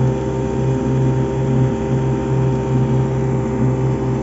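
Outboard motor of a small flat-bottomed boat running at a steady cruising speed: an unbroken, even drone with a strong low hum.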